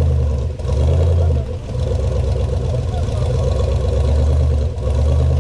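Off-road 4x4's engine running at low revs, steady with a few brief dips.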